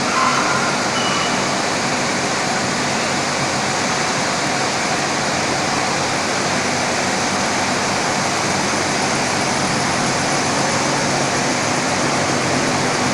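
Gas singeing machine running: a steady rushing noise with a faint low hum underneath.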